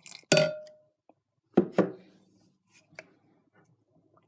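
Knocks and a clink of a utensil against a mixing bowl as borax activator is added and stirred into the slime glue. One loud knock with a short ring comes about a third of a second in, two more about a second and a half in, then a few faint clicks.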